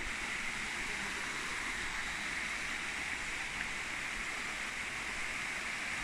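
Stream water flowing steadily, an even rushing sound.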